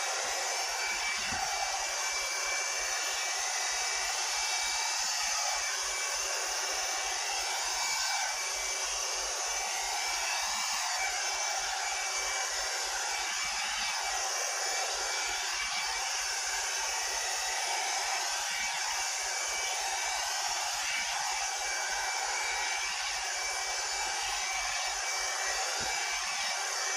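Hot-air styling brush (a blow-dryer brush) running steadily: an even rush of blown air with a thin constant whine from its motor.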